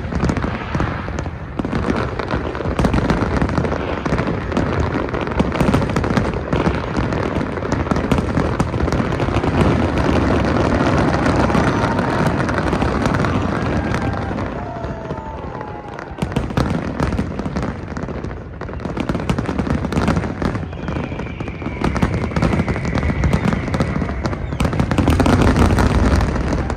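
Fireworks display: a dense run of bangs and crackling bursts, with a few short whistles from rising shells.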